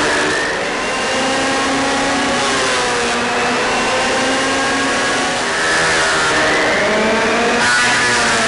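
Electric hand planer running and cutting across charred wood, its motor whine rising and falling in pitch as the blades bite and ease off, over the hiss of shaving.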